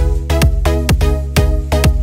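Upbeat electronic background music with a steady beat, about two strikes a second.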